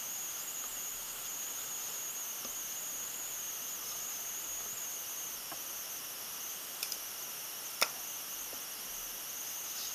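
A steady high-pitched background drone. A sharp click comes about eight seconds in, with a couple of lighter clicks just before it.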